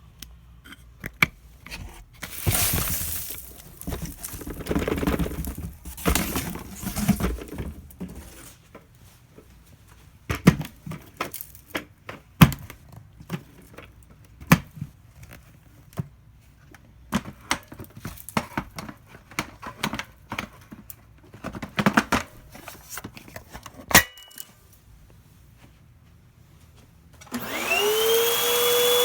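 Clicks, knocks and rustling from handling, then near the end a vacuum cleaner switches on, its motor whine rising and settling into a steady tone.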